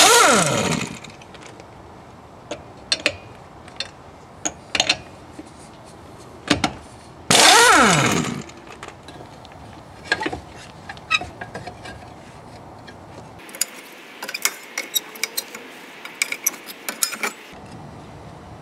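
Impact wrench run in two short bursts on the rusted, very tight hub nuts, one at the start and one about seven seconds in, each winding down in a falling whine. Scattered metallic clicks and clinks of spanner on nuts between and after.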